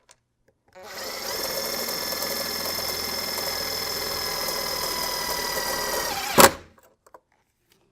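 Power drill driving a self-tapping screw through aluminium: a steady motor whine that rises briefly as it spins up, runs about five seconds, then stops with a single sharp click.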